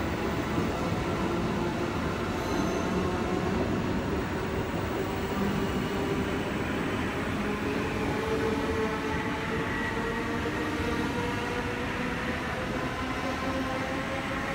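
SL X60B electric commuter train (Alstom) pulling out along the platform: steady rumble of wheels and running gear as the carriages pass, with a whine from the electric traction drive slowly rising in pitch as it gathers speed.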